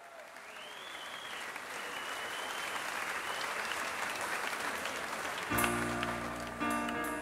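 Crowd applause fading in. About five and a half seconds in, music starts over it, the opening of a live song recording.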